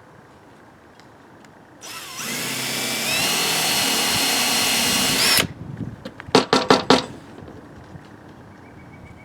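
Electric power drill running for about three and a half seconds, its whine stepping up in pitch partway through, then stopping abruptly, followed by a quick run of sharp clicks.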